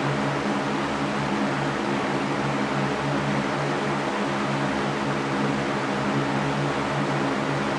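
Electric fan running steadily: an even rush of air with a steady low hum underneath.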